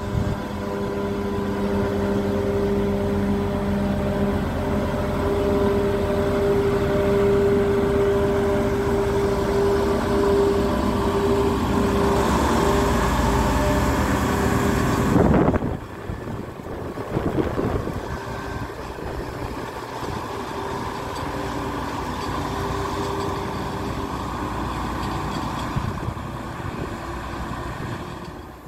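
Diesel locomotive engine running with a steady hum over a low rumble as the locomotive rolls slowly past with freight wagons. About halfway through the sound changes abruptly to a quieter, more distant rumble of the freight train.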